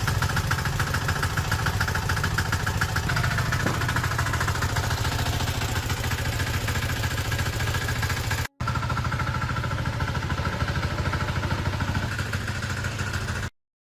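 A motor or engine running steadily with a fast, even rhythm and a low hum. It drops out briefly about eight and a half seconds in, then stops abruptly near the end.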